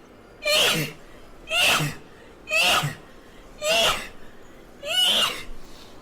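A girl sneezing five times in a rapid fit, the sneezes about a second apart.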